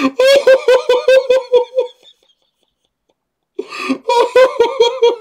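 A man laughing hard in rapid, high-pitched bursts, about six a second. The laughter goes silent for about a second and a half in the middle, then starts up again.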